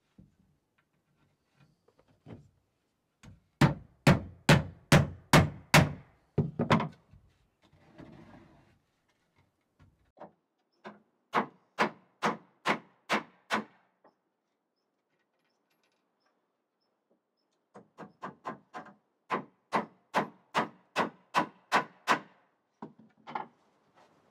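Hammer driving hand-forged square nails into the hardwood steps of a wooden ladder: three runs of blows, about three a second, with pauses between. The last run starts with light taps and grows heavier.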